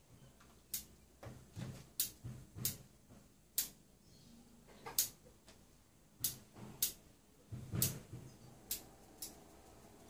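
Bonsai scissors snipping thin twigs off a leafless elm bonsai during light tip-pruning of the crown. There are about ten sharp clicks at irregular intervals, some with a soft low knock.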